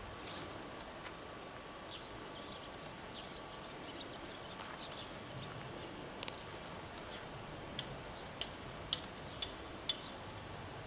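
Faint outdoor background of a village street with scattered light ticks; near the end comes a run of five sharper ticks about half a second apart.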